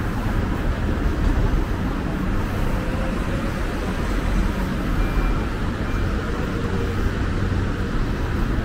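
Steady city-street traffic noise: the even rumble of passing vehicles' engines and tyres, heaviest in the low end.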